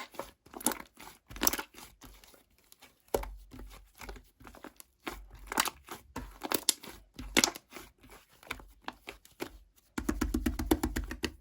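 Clay-mixed slime being squeezed and stretched by hand, giving irregular sticky crackles and popping clicks. About ten seconds in, a fast, dense run of clicks starts.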